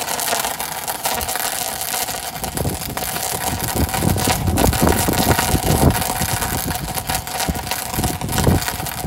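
An engine running, with an irregular low rumble coming in about two and a half seconds in.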